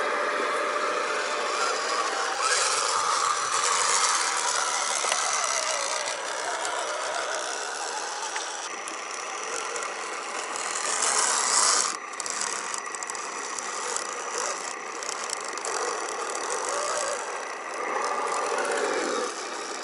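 Electric radio-controlled scale off-road trucks driving: a steady mechanical whir of the motor and gear drivetrain, with rattling and tyre noise over wet and rough ground. The sound changes abruptly about twelve seconds in.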